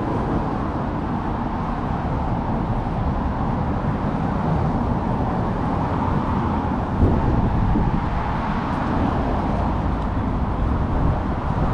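Steady city street traffic noise: road vehicles running past, with a slight swell about two thirds of the way through as one comes closer.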